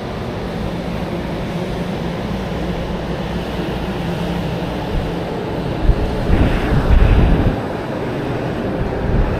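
Busy city street noise: a steady traffic rumble with a low hum. A louder low rumble swells about six seconds in and lasts a second and a half.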